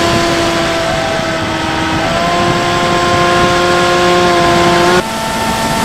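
Electric motor and propeller of a Bixler 3 RC plane running at steady high throttle, a loud even whine with wind rush over the onboard camera. The whine drops in loudness and shifts in pitch about five seconds in.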